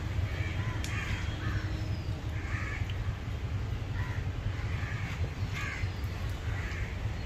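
Bird calls repeated about once a second, over a steady low hum.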